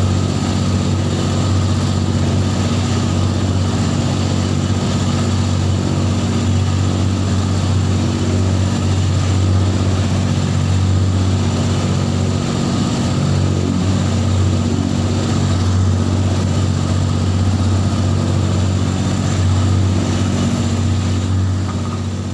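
Outrigger boat's engine running steadily under way: a loud, even low drone, with a hiss of wind and water over it.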